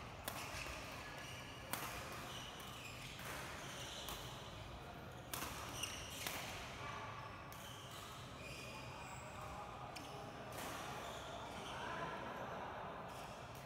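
Badminton doubles rally: a series of sharp racket-on-shuttlecock hits, with rubber-soled shoes squeaking on the court mat as the players move.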